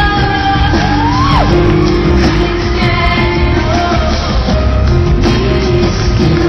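A live rock band playing with a woman singing. About a second in, a voice swoops up in pitch and falls away.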